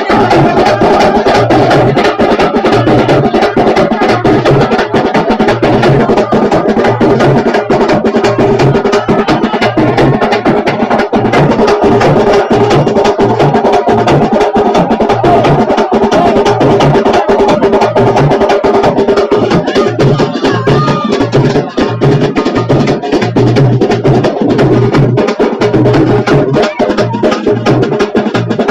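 Loud, continuous percussion-driven music: fast, dense drum strokes over a sustained melody line.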